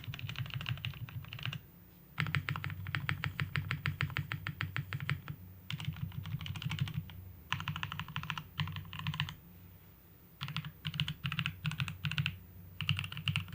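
Mucai MK680H 65% mechanical keyboard with Outemu red linear switches being typed on in rapid bursts, with short pauses between them. The board is modded with EVA rubber in the case, Poron switch pads and regreased stabilizers for a muted sound.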